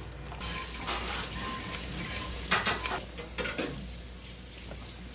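Food sizzling in a pan while a utensil stirs and scrapes against it, with a few sharper clinks about a second in and again between two and a half and three and a half seconds.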